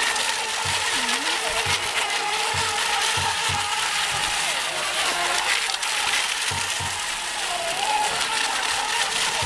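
Electric RC racing boats' motors whining on the water, several whines gliding up and down in pitch as the boats throttle and turn, over a steady hiss. Low thumps are scattered throughout.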